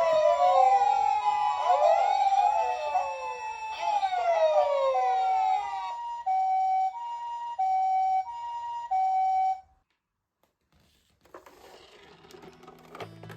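Several ambulance sirens sounding at once: wailing sirens glide up and down over a two-tone hi-lo siren of the Japanese kind. The glides drop out about six seconds in, leaving the two-tone alone, which cuts off suddenly a few seconds later; a faint clatter follows near the end.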